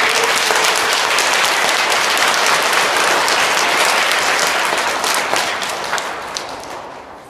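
Audience of schoolchildren applauding, loud and dense, fading away over the last second or so.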